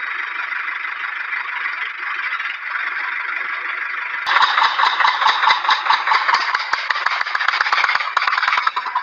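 Small motor of a toy construction machine running with a steady whir. About four seconds in it turns louder and rattly, with rapid ticking like a small gearbox under load.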